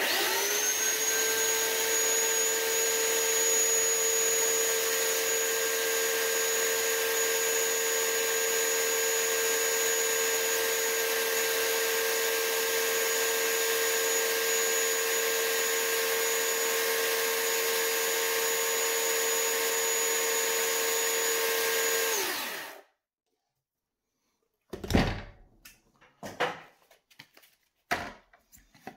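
Electric chainsaw's motor running at full speed with a steady whine, the chain spinning over a piece of plywood as a test that the chain oiler is spraying oil. About 22 seconds in it is switched off and winds down quickly, followed by a few short knocks.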